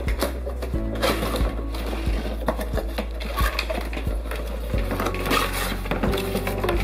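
Cardboard box being handled and pulled open: rustling, scraping and short knocks of the card, over steady background music.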